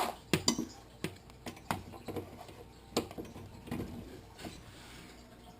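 Irregular clicks and light knocks of cables and plugs being handled and reconnected at the back of a desktop computer, about seven sharp taps spread unevenly over the few seconds.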